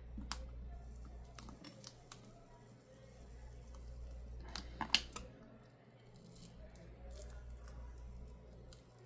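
Scattered small clicks and taps as a small board and its plastic and metal parts are handled and pressed into place on a tablet screen, with a brief cluster of louder clicks about five seconds in.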